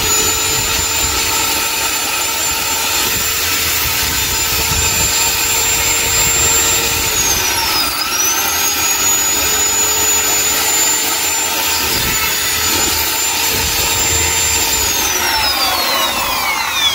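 Corded electric drill running at a steady high pitch as it bores into the wall. About seven seconds in, the motor dips in speed and picks up again; near the end it winds down and stops.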